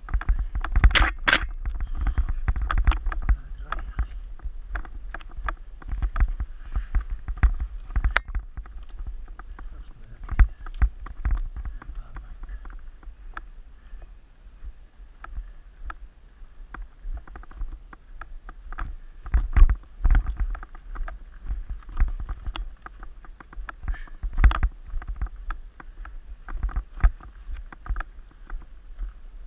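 Mountain bike rattling and knocking over a rough forest singletrack, picked up by an action camera on the rider, with a steady low rumble of wind and tyres underneath. Sharp knocks from bumps come irregularly, hardest about a second in and again around twenty seconds in.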